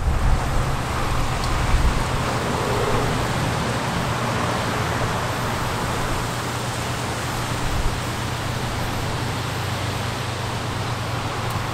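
Double jet-flame torch lighter burning with a steady hiss.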